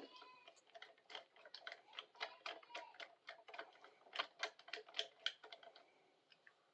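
Light, irregular clicks and taps of small hand tools and metal connector parts being handled, several a second, fading out near the end.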